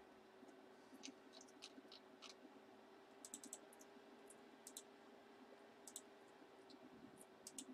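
Faint, scattered clicking of a computer keyboard and mouse, in short clusters of a few clicks, over a faint steady hum.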